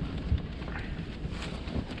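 Wind noise on the microphone, with a few faint knocks.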